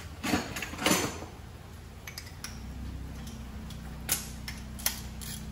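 Metal sockets clinking and clattering as they are handled from a socket set: two loud clatters in the first second, then a few lighter clicks. A low steady hum comes in about halfway through.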